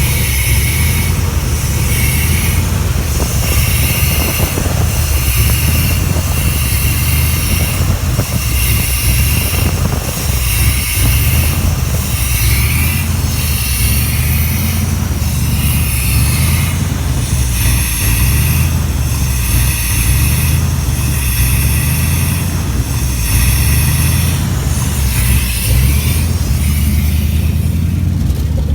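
1987 Chevy Silverado K10's 350 small-block V8 running at a rough idle, surging up and down on its own in an even, repeating rise and fall: a hunting idle, gaining and losing power, of unknown cause.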